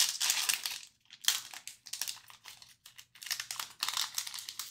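Crinkling foil wrapper of an Upper Deck Allure hockey card pack being torn open and handled, in three bursts of rustling.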